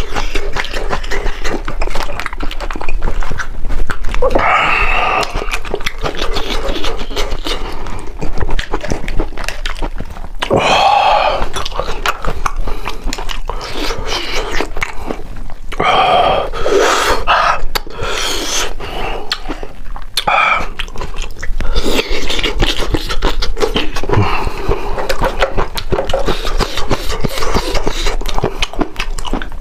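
Close-miked wet tearing, squishing and cracking as hands pull apart a braised lamb's head in chili-oil sauce, mixed with chewing and lip-smacking mouth sounds.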